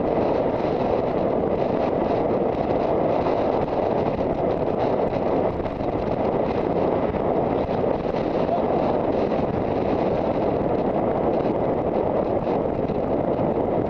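Steady, loud wind rushing over a rider-mounted camera's microphone as the horse travels at speed on a cross-country course.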